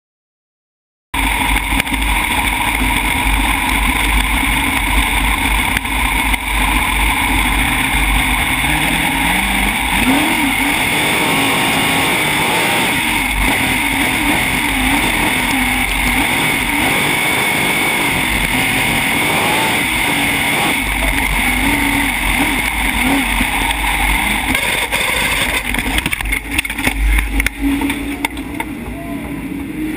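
Sprintcar V8 engine heard through an onboard cockpit camera. It comes in suddenly about a second in and runs loud, its pitch wandering up and down as the car circulates in a pack, with one rising rev about eight to ten seconds in.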